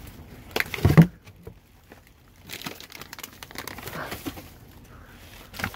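Plastic wrapping crinkling and cardboard boxes being moved and shuffled, with one louder thump about a second in.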